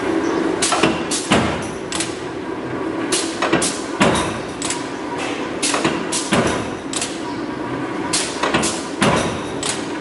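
Power punch press stamping holes through 1.2 mm mild steel sheet: a dozen or so sharp metallic strokes at uneven intervals of about half a second to a second, some in quick pairs, over a machine hum that fades after about two seconds. These are the tube holes being punched into the inner tank sheet of a solar water heater.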